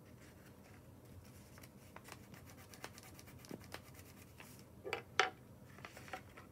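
Wax crayon colouring on paper: a run of quick scratchy strokes, then two louder clicks about five seconds in.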